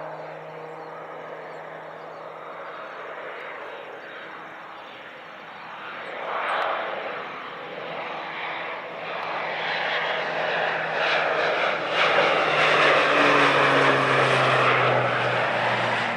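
Airplane engine growing steadily louder as the aircraft approaches, its pitch dropping slightly in the last few seconds as it passes.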